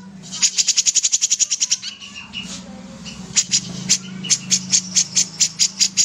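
Caged kapas tembak (grey-cheeked bulbul) singing. It opens with a fast rattle of sharp, high notes, about ten a second, and gives a few short whistled notes around two seconds in. From about three seconds in comes a slower series of sharp notes, three or four a second, all over a low steady hum.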